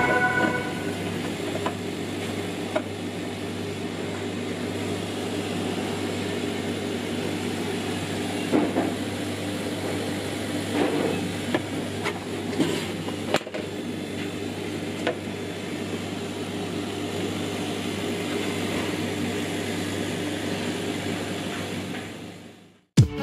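Steady machine hum, with a few light clicks and knocks, fading out near the end.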